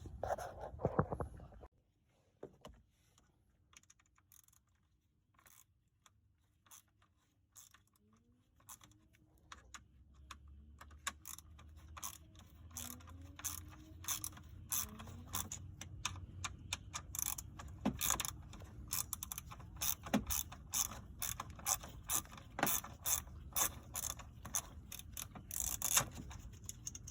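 Hand ratchet clicking in quick runs as the bolts holding a BMW 328i's engine oil cooler are backed out. The clicks are sparse and faint at first, then come thick and louder from about halfway through.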